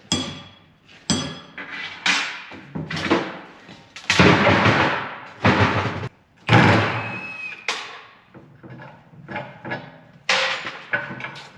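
Heavy metal clanks and thunks, some ringing briefly, from parts of a disk harrow gang being knocked and handled during its rebuild. There are about eight separate knocks at irregular intervals, with a longer clattering stretch near the middle.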